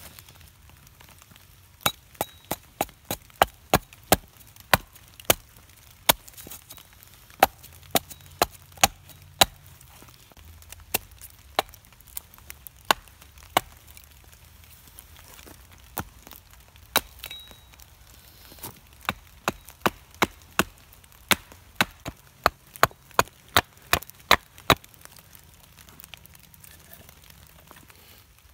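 Carving axe chopping into a green sugar maple branch on a chopping stump, hewing out a spoon blank: a run of sharp, irregular strikes about one or two a second, with a short pause midway and the strikes thinning out near the end.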